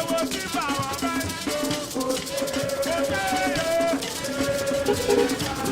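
Background music with a fast shaker and drum beat under a sung or played melody.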